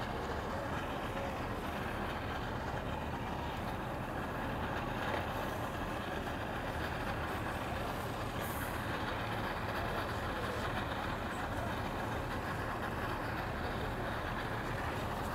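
Engines idling steadily: a low hum under a constant haze of background noise.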